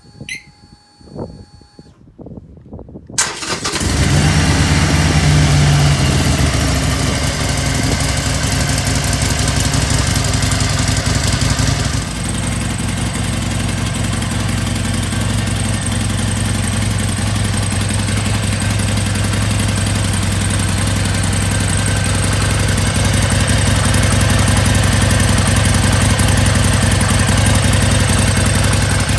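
Harley-Davidson Sportster XL1200V Seventy-Two's air-cooled 1200 cc V-twin being started on its electric starter. After a few clicks, it catches about three seconds in and runs a little faster for a couple of seconds. It then settles into a steady idle, whose sound changes abruptly about twelve seconds in.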